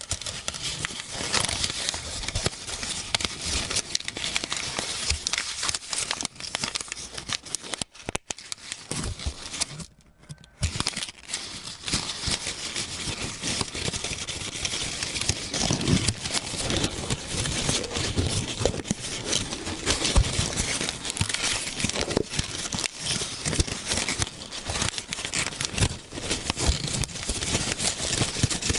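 Paper being rustled and crumpled by hand at close range, a dense, continuous crackling with two brief pauses about eight and ten seconds in.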